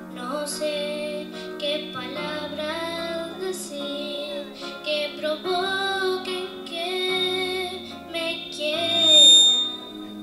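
A young girl singing a Christian worship song into a microphone over instrumental accompaniment, loudest on a long note that she swells and lets fall near the end.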